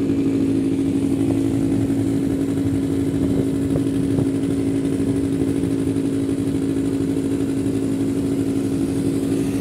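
Quad bike (ATV) engine running steadily at idle close by, one even hum that holds the same pitch throughout.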